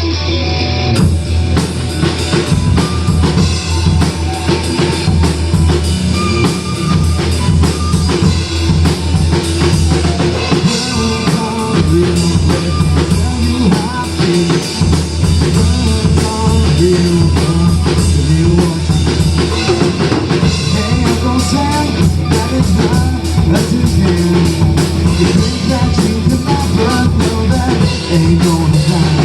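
Rock band playing an instrumental stretch of a song: drum kit keeping a steady beat under guitar.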